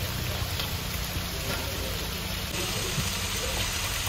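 Steady rushing hiss over a low rumble: the kitchen noise of rows of clay tagines heating over charcoal braziers.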